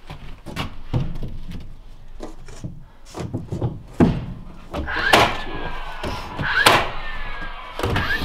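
A large wooden barn-board sheathing panel knocking and thumping against the wall and floor as it is stood up and pressed into place, a series of sharp knocks, the strongest about four, five, six and a half and eight seconds in.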